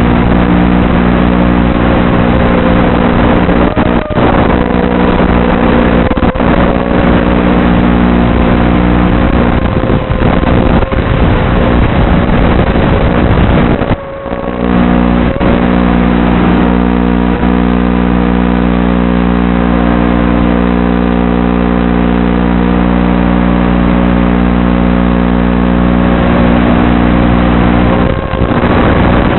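Wizard X220 racing quadcopter's motors buzzing steadily in flight, with a small wavering in pitch and a brief drop in level about 14 seconds in.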